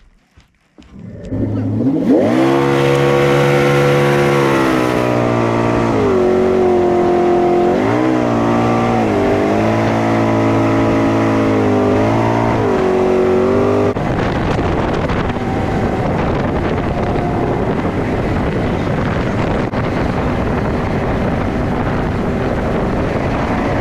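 A jet-drive boat's engine comes up about a second and a half in. For the next twelve seconds or so it revs up and down several times as the boat works its way out of a shallow slough. About fourteen seconds in it settles into a steady fast run with a rushing noise over the engine.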